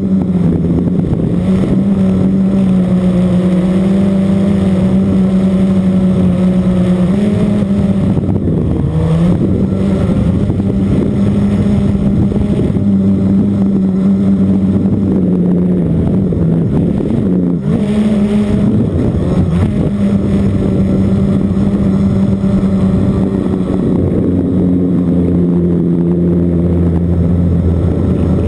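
Blade 350 QX quadcopter's four brushless motors and propellers running with a steady, loud whine, heard close up from the camera mounted on the craft. The pitch dips and wavers twice in the middle as the craft manoeuvres, then holds steady.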